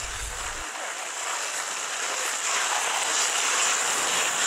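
Ice hockey skate blades scraping and hissing across the ice, a steady noisy hiss that grows a little louder about halfway through.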